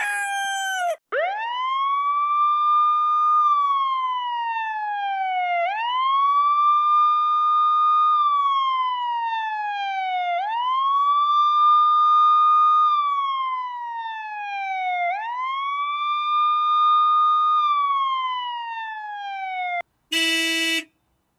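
Wailing siren alarm sound effect: the pitch climbs quickly, holds briefly, then slides slowly down, over and over about every four and a half seconds. A short harsh buzzer tone cuts in near the end.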